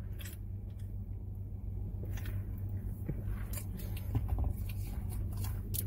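Steady low hum inside a car, with faint sipping through a straw and chewing sounds and a few small clicks.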